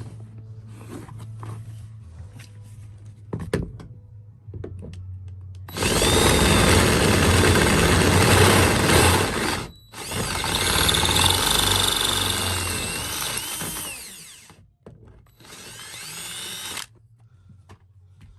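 Electric drill boring out a mounting hole to take a pan head screw, running in three bursts: two long runs with a brief stop between them, then a short one. The motor whine shifts in pitch as the bit loads up and eases off.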